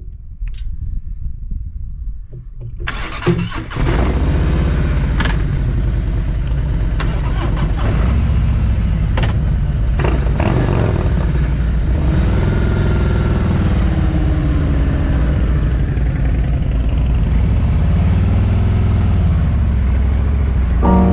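Motorcycle running and riding off. A loud engine-and-wind rush sets in about three seconds in, and the engine pitch rises and falls several times with the throttle.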